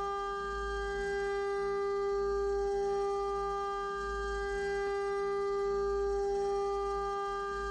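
Milo V1.5 desktop CNC mill's spindle running with a steady, high-pitched whine while its end mill cuts into a metal plate, over a low rumble.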